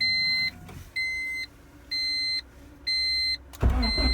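Car electronics beeping steadily, about one half-second beep a second, then, about three and a half seconds in, the 1998 Honda Civic's engine cranks and fires up through its newly installed push-start button and keeps running.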